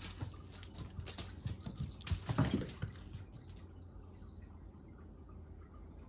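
Cats playing with a cat teaser wand: a quick run of light taps and scrabbling, with a louder thump about two and a half seconds in. It goes quiet after about three and a half seconds.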